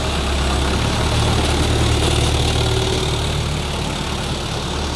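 Kubota RT125 single-cylinder horizontal diesel engine running steadily at idle.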